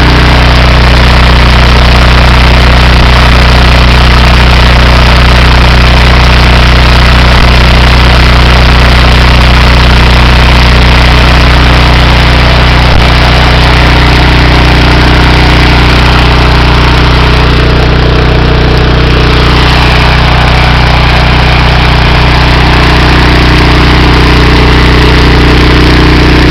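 Honda GX390 single-cylinder engine on a pressure washer, running steadily and very loud. The hissing upper part of the sound dips for a couple of seconds about two-thirds of the way through.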